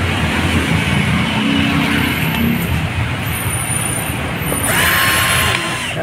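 Steady low hum of motor-vehicle engines. Near the end a cordless drill-driver whirs for about a second, driving a screw into the new plastic pulley on a washing machine's gear case.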